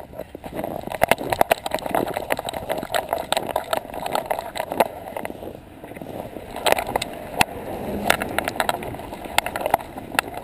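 Irregular knocking, clicking and rubbing from a GoPro Hero 2 in its housing, strapped to a dog's back on a loose mount and jostled and brushed by the dog's fur as it moves through snow.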